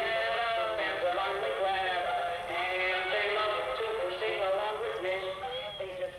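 A song with singing played back from old tape on a miniature four-transistor reel-to-reel recorder, heard through its little built-in speaker: thin, with no bass.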